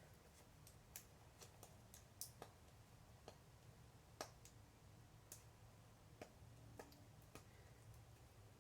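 Faint, irregular clicks and taps of hands handling a clear plastic gachapon capsule sealed with tape, over near silence.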